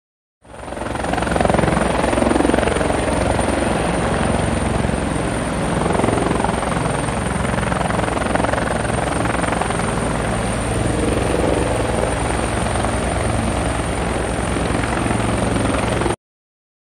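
Helicopter running steadily: rapid rotor-blade chop with a thin, steady high whine above it. It fades in quickly just after the start and cuts off abruptly near the end.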